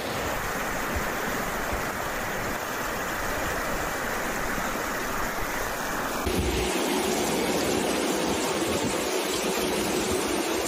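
Muddy floodwater rushing down a street in a steady torrent. About six seconds in the sound changes abruptly to a different, lower-sounding rush of water.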